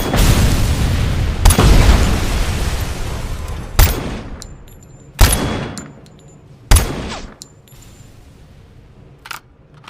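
Sound-effect gunfire of an assault cannon rifle: a heavy blast with a long rumbling tail, a second blast about a second and a half in, then three single sharp shots about a second and a half apart, each dying away. A few small clicks come near the end.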